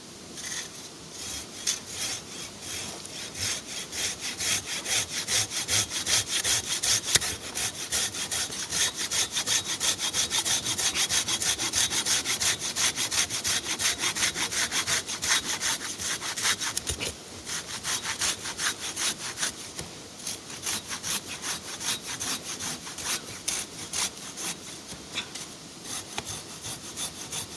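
A Silky Japanese pull saw cutting through a log by hand in fast, regular strokes, starting about half a second in and running on with a brief pause partway through.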